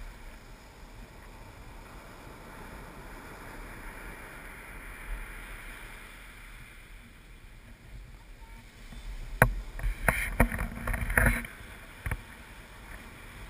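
Ocean surf breaking and washing up the sand as a steady hiss. About nine seconds in come a couple of seconds of loud splashing and knocks close to the microphone as the swash reaches it, with one last knock shortly after.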